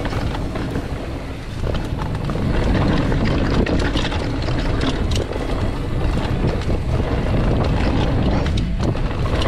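Wind buffeting the helmet or chest camera's microphone on a downhill mountain bike, with tyres on dirt and the bike's chain and frame rattling and clicking over rough ground. It grows louder about two and a half seconds in as speed picks up.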